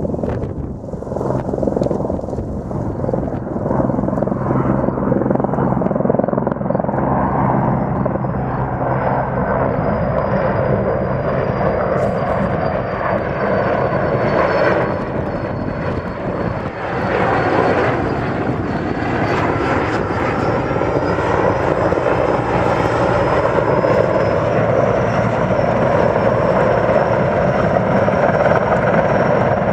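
Sikorsky S-64 Skycrane heavy-lift helicopter flying past low, with the steady beat of its six-blade main rotor and a thin high whine from its twin turbine engines. The whine dips and rises slowly in pitch, and the sound grows louder as the helicopter comes closer.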